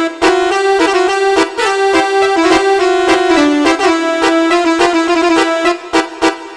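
Electronic telolet basuri bus-horn melody, reed-like sustained notes like a pianika, playing a tune over a steady drum beat. Near the end the horn notes stop and only the drum hits remain.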